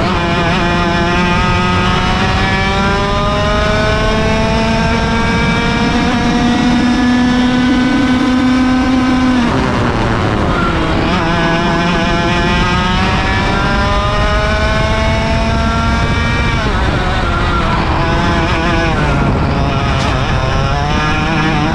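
100cc two-stroke kart engine at racing speed, heard from on board. Its pitch climbs steadily for about nine seconds, drops sharply as the throttle comes off into a corner, climbs again for about six seconds, then drops and climbs twice more in shorter pulls near the end.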